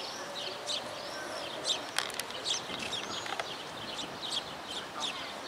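Small birds chirping continually in quick short calls, with a sharp click about two seconds in.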